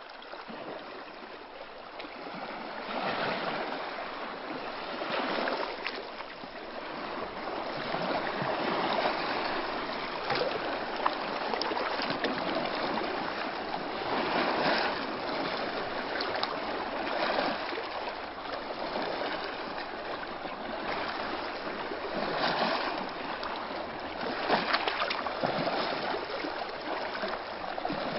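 Calm sea: small waves lapping gently, a steady wash of water that swells and eases every two to three seconds.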